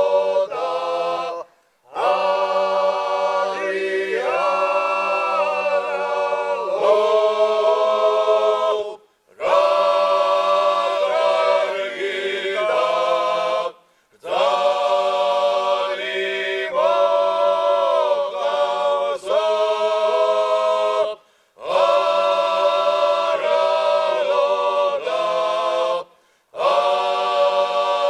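Male ensemble singing a Rachan makruli, a Georgian wedding song, unaccompanied in several-part polyphony. The voices hold long chords in phrases of several seconds, each ending in a brief silent break before the next.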